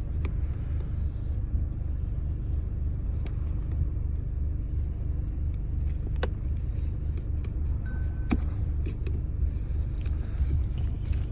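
A small flathead screwdriver prying at the plastic clips of a car's handbrake handle cover, giving a few sharp clicks, over a steady low rumble.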